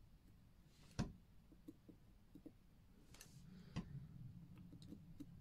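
Small metallic clicks of steel tweezers against the parts of a watch movement while its wheel train is being fitted: one sharp click about a second in, another near four seconds, with faint ticks between, over near silence.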